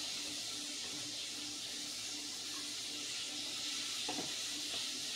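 Cube steak frying in a pan of grease: a steady sizzle, with a faint knock about four seconds in.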